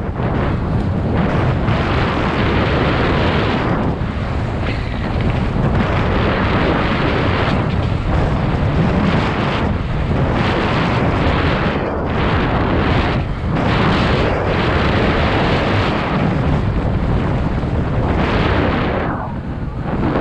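Wind buffeting a helmet-mounted action camera's microphone on a fast downhill mountain-bike run, mixed with the rumble of tyres over dry, packed dirt trail. The noise swells and eases with speed and dips briefly near the end.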